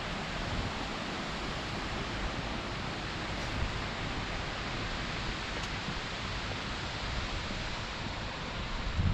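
Steady rushing of river water, an even roar with no pauses. A faint tick sounds twice.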